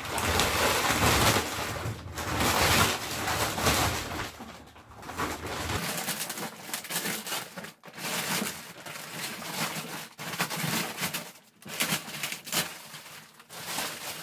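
Thick plastic wrapping around a rolled mattress rustling and crinkling in irregular bursts as the roll is lifted and shifted by hand.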